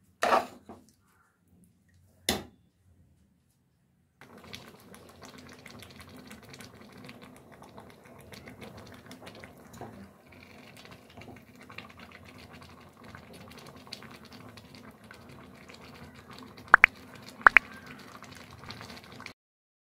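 A metal ladle knocking twice against the metal pot, then thick vegetable moong dal khichdi bubbling and spluttering softly as it simmers on the flame. Two sharp clicks near the end are the loudest sounds.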